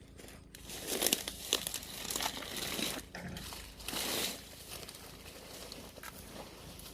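Crinkling and rustling of something being handled, in irregular bursts for the first few seconds, then fainter.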